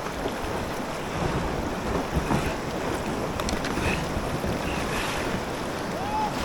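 Steady rush of fast-moving river water around a kayak, with wind buffeting the microphone.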